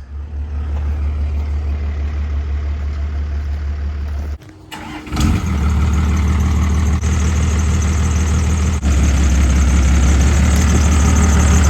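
An engine running at a steady idle. About four and a half seconds in it drops away briefly, then comes back louder and runs on steadily.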